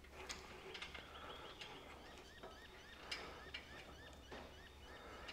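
Hand-wound engine stand turning an engine block over: faint clicks and a run of quick, small squeaks from its crank and gearing.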